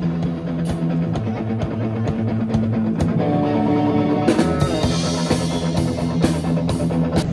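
Live rock band playing through amplifiers: electric guitars and a drum kit, with steady drum strikes under held guitar chords and cymbals coming in more strongly in the second half.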